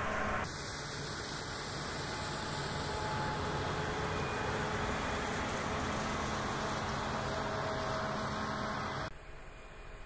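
CLAAS Lexion 8800 combine harvester running under load while stripping a crop, a steady dense engine and machinery noise with a few faint steady tones; the sound changes abruptly about half a second in and drops quieter near the end.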